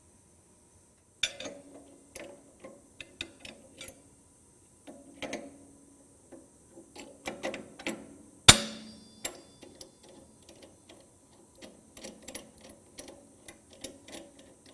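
Irregular clicks, taps and knocks of metal parts being handled on a sliding table saw during dado setup, with one loud metallic clank about eight and a half seconds in that rings briefly.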